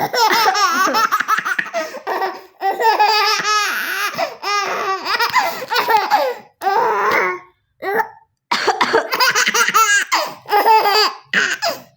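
Baby laughing hard in long runs of belly laughs, with a few short pauses, in delight at its mother's pretend coughing.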